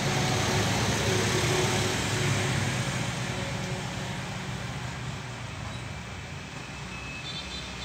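Motor traffic noise, swelling over the first couple of seconds and then slowly fading, like a vehicle passing.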